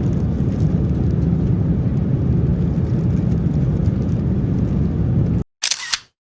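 Steady low rumble of jet engines and airflow heard inside an airliner cabin, cut off suddenly near the end, followed by a brief burst of noise and then silence.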